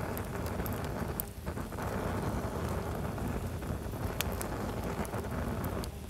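Wood campfire of stacked logs burning: a steady rush of flame with scattered sharp crackles and pops.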